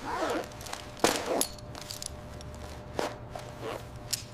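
A few scattered footsteps and knocks of gear being handled over a low steady hum, with the loudest knock about a second in.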